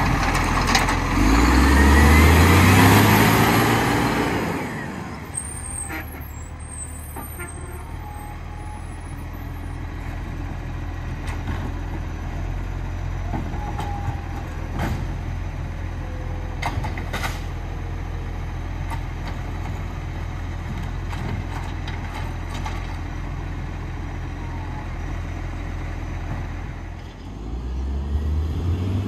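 Garbage truck engine revving up with a loud rushing hiss for the first few seconds, then idling steadily with a few scattered clicks, and revving up again near the end.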